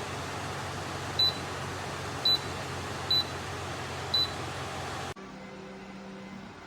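Dreo tower fan blowing steadily, with four short, high electronic beeps about a second apart from its control panel. About five seconds in the airflow noise drops off abruptly, leaving a much quieter background with a faint hum.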